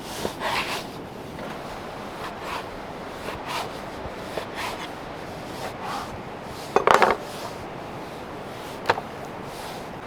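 Handling noises from cooking preparation: scattered light knocks and scrapes of wood and kitchenware, with a louder clatter about seven seconds in and a sharp knock near the end.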